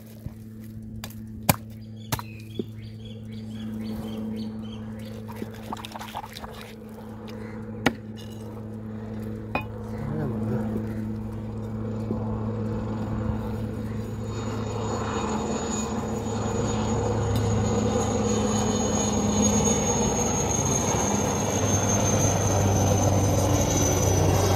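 Heavy knife chopping through a large common carp onto a wooden block: a handful of sharp chops in the first ten seconds. Behind it a steady engine drone builds, growing clearly louder over the second half, with a thin high whine that slowly falls near the end.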